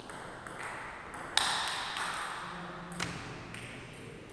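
Table tennis rally: the celluloid ball clicking sharply off the paddles and the table in quick succession, about two or three hits a second, with a loud hit about a second and a half in.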